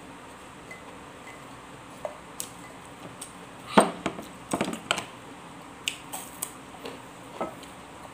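Scattered clicks and clinks of eating at a table: a spoon on a plate and a hand taking snacks from a clear plastic jar. They come in a cluster from about two seconds in, the loudest a little under four seconds in, over a steady faint hiss.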